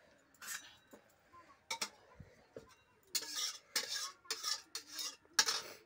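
Flat metal spatula scraping around the inside of a metal wok (kadai), gathering the last of the curry. A couple of separate scrapes come first, then a run of about five quick scrapes, roughly two a second, in the second half.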